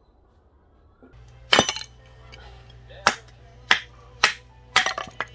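Music starts about a second in: a steady low bass hum with sharp, ringing percussive hits, about two a second toward the end.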